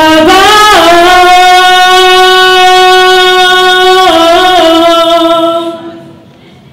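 A woman singing a long held note into a microphone through a PA, sliding up into it at the start. About four seconds in her voice makes a short wavering turn down to a slightly lower note, which she holds and then lets fade out.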